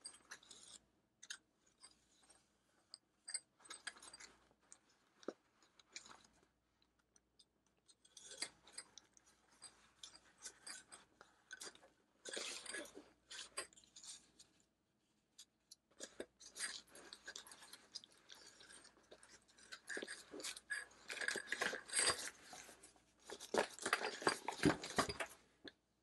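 Handling noise as the pieces of a folding camping-shovel multi-tool are packed into its nylon pouch: fabric and paper rustling with scattered light clicks and clinks of metal parts. The rustling is louder for a couple of seconds about twelve seconds in and again through most of the last six seconds.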